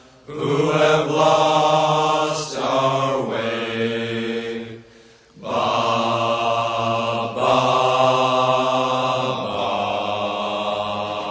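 Soundtrack music: a chanted vocal line of long held notes, with a short break about five seconds in.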